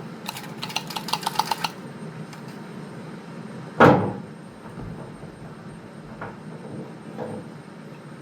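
Metal parts and tools being handled: a quick run of about ten sharp clicks, then a single loud clank with a short ring about four seconds in, and a few faint knocks, over a steady low hum.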